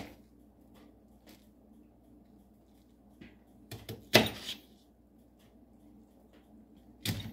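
Kitchen knife cutting Brussels sprouts in half on a paper plate: a few sharp knocks as the blade goes through onto the plate, the loudest about four seconds in.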